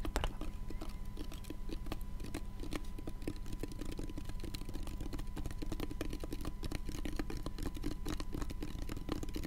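Fingers tapping quickly and irregularly on a hard black handheld object close to the microphone, ASMR-style, over a faint steady electrical tone and hum.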